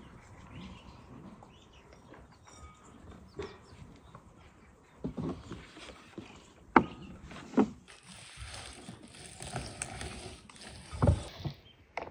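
Glass bowls knocking and clinking several times, and a dry granular ingredient pouring out of a small glass bowl into a large glass bowl with a steady hiss for about three seconds near the end.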